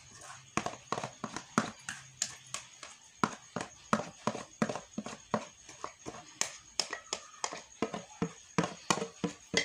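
Quick, irregular knocks and clicks, about three a second, of a spoon working against a metal mixing bowl of choux dough.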